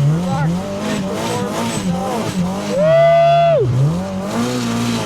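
Side-by-side engine revving up and down over and over as it works through deep snow, with a loud held 'woo' shout about three seconds in.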